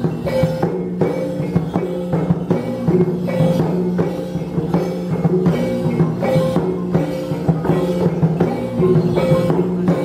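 Dayak gong-ensemble music: a fast, steady rhythm of struck, tuned gongs and drum, with repeated pitched notes over a sustained low ringing.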